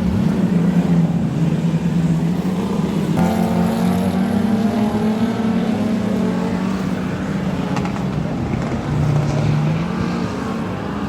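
Several speedway race car engines running together as the cars lap the track, their engine notes wavering up and down; a higher engine note comes in about three seconds in.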